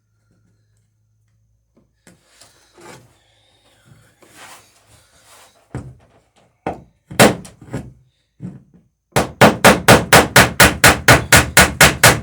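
Hammer striking a rivet in a wooden boat's planking: a few separate blows near the middle, then a fast, even run of about four to five blows a second near the end as the rivet is peened over.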